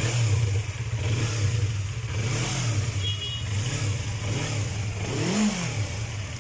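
Yamaha MT-25 motorcycle's parallel-twin engine idling with a series of short throttle blips, each briefly raising the note; the biggest rev comes about five seconds in and drops straight back to idle.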